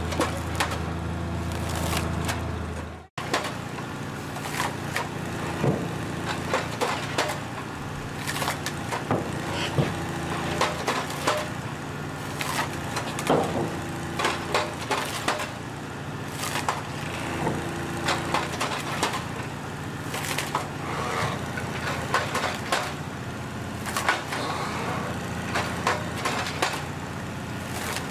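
A heavy tree-cutting machine's engine running steadily while wood cracks, snaps and splinters again and again as trees are cut or broken. There is a short break in the sound about three seconds in.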